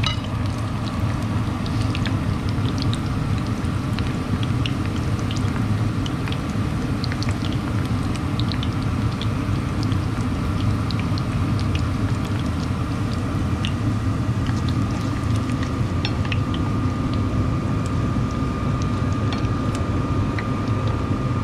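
Vietnamese fish balls deep-frying in a small pan of hot oil for their second fry: steady sizzling with many small crackles and pops.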